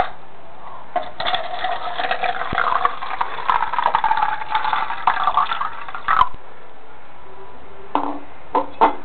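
Vinegar pouring from a bottle into a plastic cup: a trickling stream whose pitch rises slowly as the cup fills, for about five seconds before it stops.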